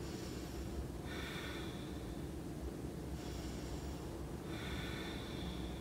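A woman breathing slowly and audibly while holding a deep split stretch, with long airy breaths about a second in and again near the end and a fainter one between, over a steady low room hum.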